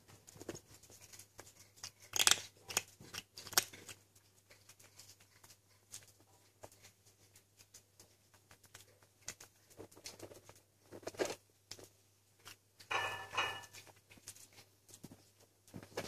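A six-week-old kitten crunching dry kibble from a stainless steel bowl. The chewing comes as irregular small crunches and clicks, with a few louder ones.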